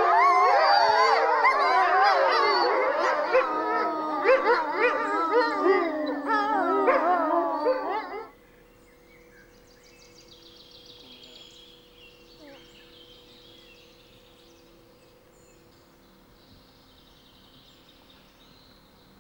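Grey wolf pack howling in chorus, several voices overlapping, each howl wavering and gliding in pitch. The chorus stops abruptly about eight seconds in, leaving only faint background sound.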